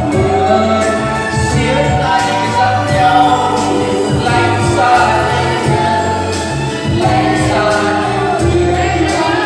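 Karaoke duet: a man and a woman singing into microphones over a backing track with a steady beat, through PA speakers.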